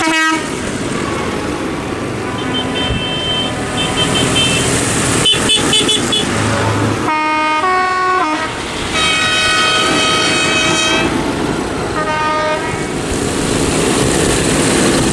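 Diesel tractors driving past with engines running and horns sounding repeatedly: short toots, a horn stepping through a few different notes about seven seconds in, then a long steady blast around nine seconds in and a shorter one near twelve.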